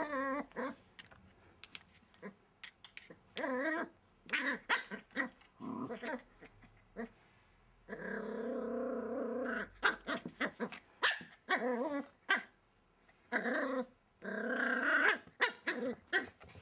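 Welsh Terrier puppy and an older terrier growling at each other in play, about six growls, the longest one about eight seconds in, with claws clicking and scratching on a wooden floor between them.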